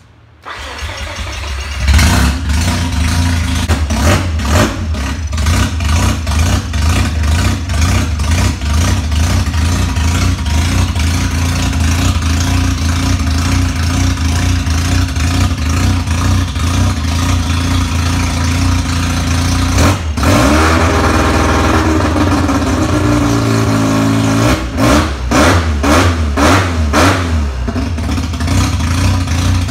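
High-performance Mazda 13B two-rotor rotary engine starting for the first time on an open header: the starter cranks briefly, the engine catches about two seconds in and runs loud and steady. The revs rise and fall around twenty seconds in, followed by a few quick throttle blips.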